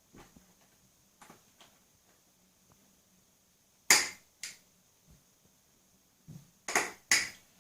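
Sharp clicks and clinks as the drive chain of a JSM90 minibike is fitted around its sprockets: two loud ones about four seconds in, two more close together near the end, with fainter taps between.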